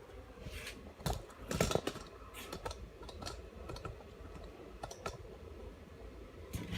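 Scattered light clicks and knocks from a Porter-Cable 20-volt cordless jigsaw being handled; the saw is not running.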